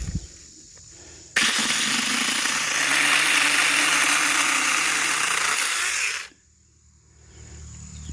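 A 4-inch cordless electric mini chainsaw kicking on suddenly about a second in and running for about five seconds as it cuts through wood, then stopping abruptly.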